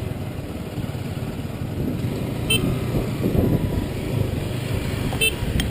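A motorcycle running at low road speed, heard from on board, with wind rumbling on the microphone.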